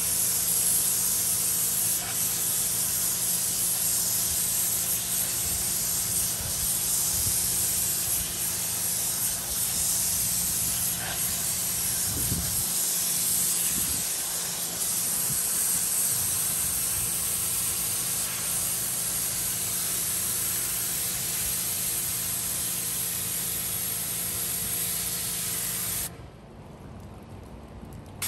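Pressure washer wand spraying a wet carpeted floor mat: a steady hiss of the water jet with a steady hum underneath. The spray and hum cut off near the end.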